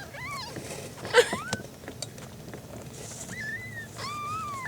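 Newborn kittens mewing: four short, high-pitched mews, the first two rising, the last one longer and arching. A brief knock comes about a second in.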